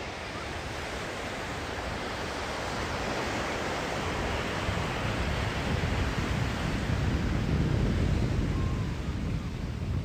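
Ocean surf breaking on the shore, a rushing wash of noise that swells slowly louder over several seconds.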